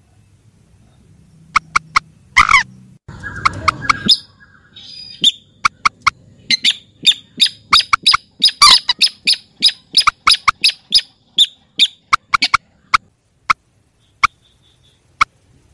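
Recorded calls of rails (mandar and sintar) played as a bird-trapping lure: short, sharp call notes, a few at first, then a fast chattering run in the middle that slows to single spaced notes near the end.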